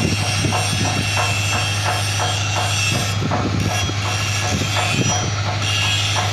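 A machine running with a steady low hum, overlaid by a regular mechanical clatter of about three to four clicks a second.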